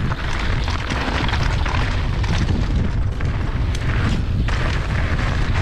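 Wind buffeting an action camera's microphone on a fast mountain-bike descent, a steady heavy rumble, with the tyres rolling over loose dirt and gravel and scattered clatter from the bike.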